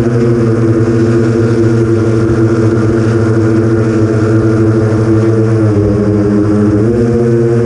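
Brushless motors and 8-inch propellers of an FPV quadcopter (iFlight XL8 frame, BrotherHobby Avenger 2812 1115kv motors, Master Airscrew 8045 props), heard through the onboard camera, running at a steady throttle. Near the end the pitch dips briefly as the throttle eases, then climbs back.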